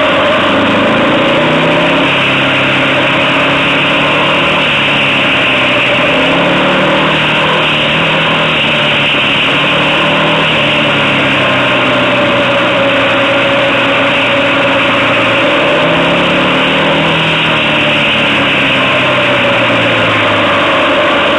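Motorcycle engine heard on board, its pitch falling and rising again and again as the rider eases off into tight bends and accelerates out of them.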